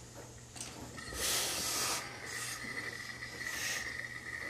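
Tailor's hose-fed steam iron hissing as steam is let out onto the trouser leg: three bursts, the first and loudest about a second in and lasting about a second, two shorter ones after it, with a thin steady high whistle-like tone beneath them.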